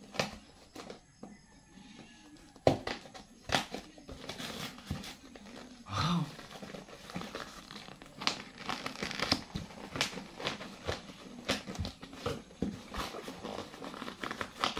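Packing tape and a plastic shipping-label sleeve being picked at and peeled off a cardboard box: irregular crinkling, scratching and tearing with scattered sharp clicks.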